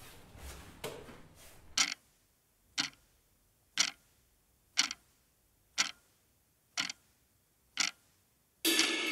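Wall clock ticking once a second, seven ticks in near silence. Near the end a loud burst of sound cuts in.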